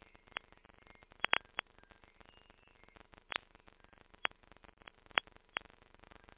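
Glitched, heavily degraded digital audio from a failed low-quality render of a song: about nine sharp clicks and pops at uneven intervals over a faint crackle, with brief faint broken tones. The sound is thin and muffled, as from a very low sample rate.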